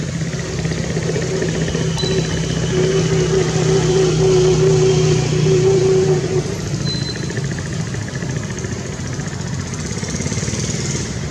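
A motorbike engine running with a steady hum that swells for a few seconds in the middle and then eases off.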